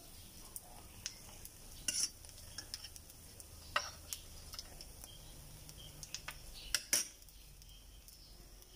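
Quail eggs sizzling faintly in the cups of an electric non-stick egg pan, with a handful of sharp clicks and scrapes of a utensil working in the pan.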